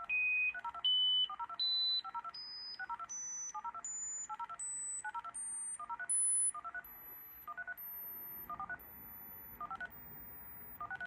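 Stepped sine-wave test-tone sweep from audio measurement software, used to chart an audio interface's frequency response. Each pure tone is held about half a second and rises step by step from about 2.5 kHz to about 16 kHz, ending near the top of hearing. Between the steps come short clusters of quick, lower beeps, and the tones grow quieter toward the end.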